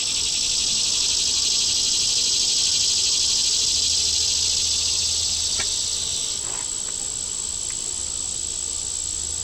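A steady, high-pitched insect chorus with a constant thin whine on top. It is louder for the first six seconds or so, then eases off.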